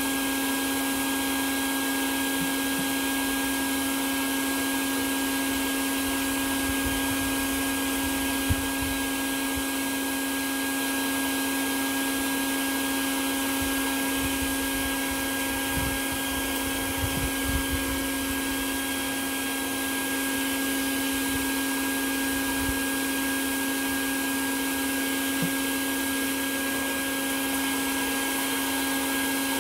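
Bee-removal vacuum's motor running steadily, a constant unbroken hum, with a few light knocks about eight seconds in and again around fifteen to eighteen seconds in.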